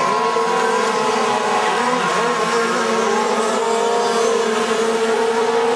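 Engines of several radio-controlled offshore racing boats running flat out together: a steady, high buzz of overlapping engine notes whose pitches drift up and down as the boats race and turn.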